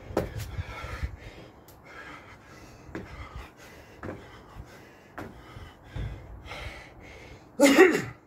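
A man breathing hard and panting during burpees and jump squats, with a few low thuds from his feet landing on patio slabs. Near the end comes a loud, partly voiced gasp.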